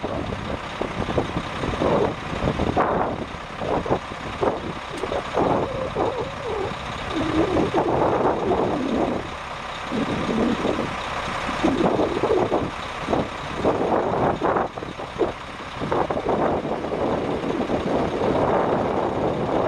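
Cummins M11 six-cylinder diesel engine of a 1998 Ford LT9511 dump truck running while the hydraulic hoist lowers the raised dump body, with an uneven rise and fall in level.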